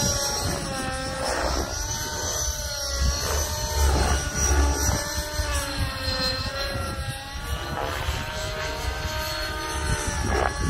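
Nitro RC helicopter in flight: its O.S. .55 two-stroke glow engine with tuned pipe runs at high revs while the rotors spin. The engine note wavers up and down in pitch as it manoeuvres.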